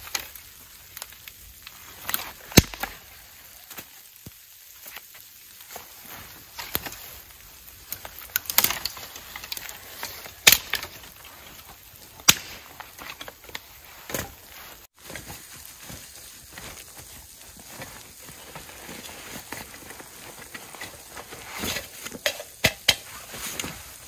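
Dry sticks and twigs snapped by hand: sharp cracks a few seconds apart, with a quick run of them near the end, over soft rustling.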